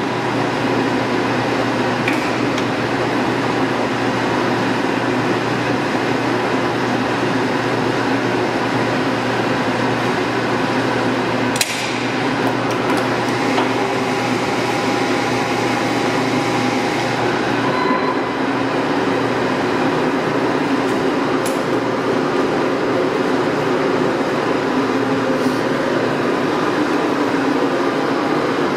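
Warner & Swasey No. 4A turret lathe running steadily under power, a constant mechanical hum with steady whining tones. A single sharp click about twelve seconds in.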